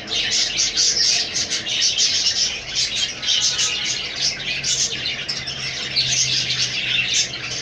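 Budgerigars chirping and chattering: a continuous run of many quick, high chirps.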